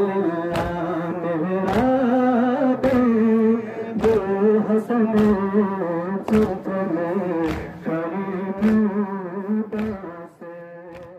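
Men chanting a noha (mourning lament) while beating their chests (matam) in unison, a sharp slap about once a second in time with the chant. The sound fades away near the end.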